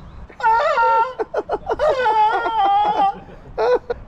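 A person's high-pitched, drawn-out wailing and whimpering cries, with a stretch of short choppy laugh-like pulses in the middle and a short cry near the end, in a mock show of being attacked by a fake crocodile.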